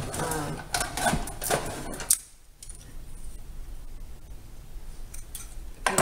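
Small snips cutting a strip of thin craft aluminum, with one sharp snip about two seconds in. Before it comes clinking and rattling of small metal tools and parts being handled.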